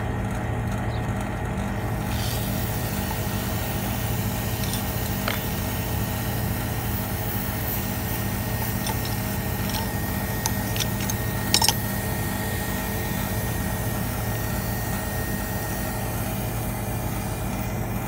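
Outdoor unit of a split-type air conditioner running steadily, its compressor and fan humming. From about two seconds in a high hiss joins the hum, and a few sharp clicks come about two-thirds of the way through, as a manifold gauge hose is fitted to the running unit's service port.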